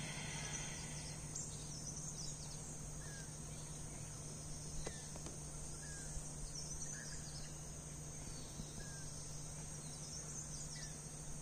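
Outdoor ambience of insects, crickets giving a steady high buzz, with a small bird repeating short chirps every second or two.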